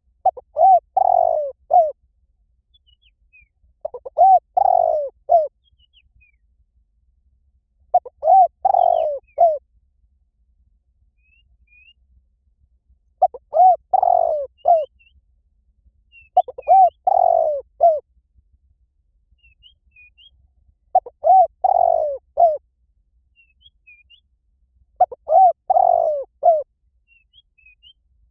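Spotted dove cooing: a phrase of several coos, repeated seven times about every four seconds. Faint chirps of small birds sound in the background.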